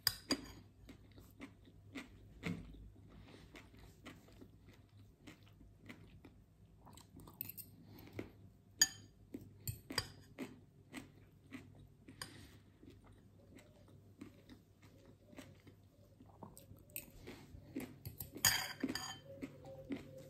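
Close-up chewing and crunching of a mouthful of poke, with irregular sharp clicks and smacks all through. Near the end comes a louder scrape of the spoon in the glass bowl.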